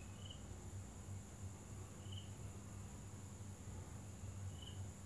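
Quiet room tone with a steady low hum, broken by three short, faint, high chirps about two seconds apart. No blender motor is heard.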